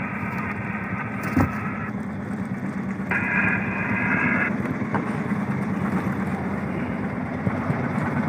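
Fishing boat's engine running steadily under wind and water noise. Twice a high, buzzy tone sounds for a second or so, and there is a single knock about a second and a half in.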